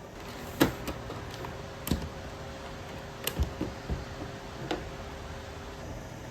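Several sharp clicks and light knocks at irregular intervals, the loudest about half a second in, as objects are handled and set down, over a faint steady hum.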